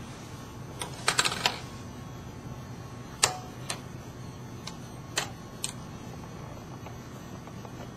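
Small sharp plastic clicks and taps from handling the fusion splicer and fiber holder: a quick cluster of clicks about a second in, then five single clicks spaced out over the next few seconds.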